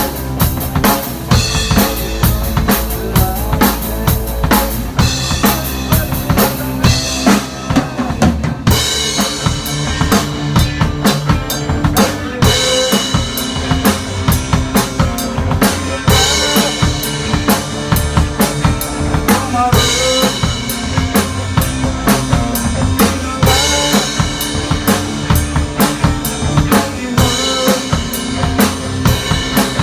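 Music driven by a drum kit, with bass drum and snare keeping a steady beat under sustained pitched instruments and a wavering melody line.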